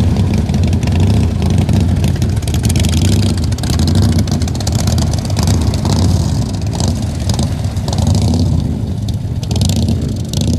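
Motorcycle engines running steadily as several bikes ride off slowly across soft ground.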